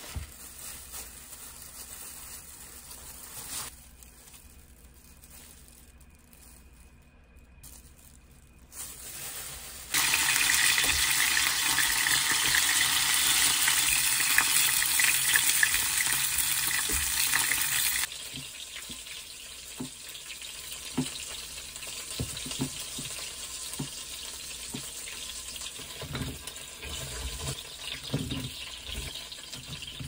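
Battered shrimp frying in hot oil in a pan: a loud, steady sizzle that starts suddenly about ten seconds in and cuts off about eight seconds later. It is followed by scattered light clicks and knocks of tongs turning the shrimp in the pan.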